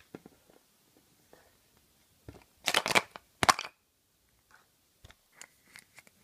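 Hollow plastic toy egg being pried open by hand: a few light taps, then a burst of sharp plastic clicks and rattles about halfway through as the halves come apart, then scattered light taps as the halves and the small plastic figure inside are handled.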